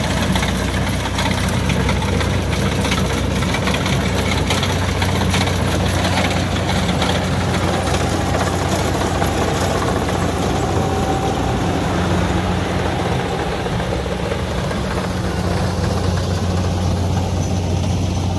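Kubota DC70 combine harvester's diesel engine running steadily under the machine's threshing noise, a continuous low drone with a rattly, clattering wash over it.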